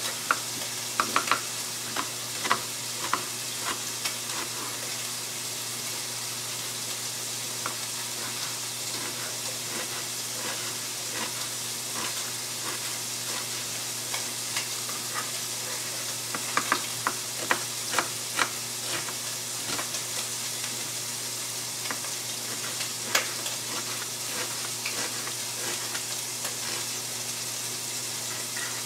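Smoked bacon sizzling steadily in a frying pan as it renders its fat. Over it come short knife taps on a cutting board as a shallot is diced, in bunches near the start, about halfway through and a little later.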